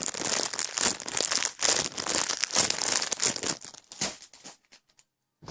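Dense, rapid crinkling and rustling as a soft squishy toy is squeezed and handled, dying away after about four and a half seconds.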